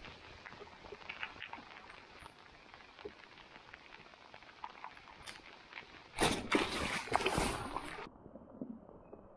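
Light rain falling on the water and kayak, a steady hiss with scattered small ticks of drops. About six seconds in, a loud rushing noise lasts about two seconds, then stops suddenly.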